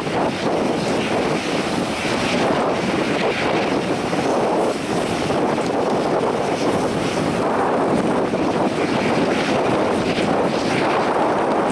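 Steady roar of a Boeing 737-800's CFM56 jet engines running at low power while the aircraft holds on the runway before take-off, mixed with wind buffeting the microphone.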